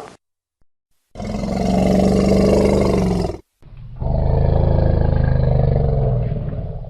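Elephant roaring twice: two long, low calls, the first starting about a second in and lasting about two seconds, the second following straight after and lasting about three seconds.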